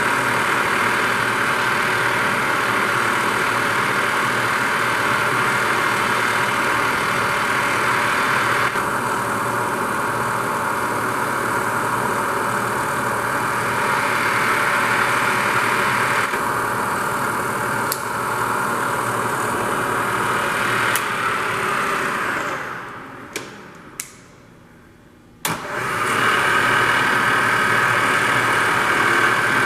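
Bridgeport Series I vertical milling machine's 2 HP spindle motor running with a steady hum. About 22 seconds in it winds down almost to quiet, with a couple of clicks, then starts again suddenly and runs on.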